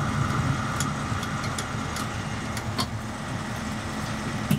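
Motor vehicle engine running steadily, a low hum with a few faint ticks.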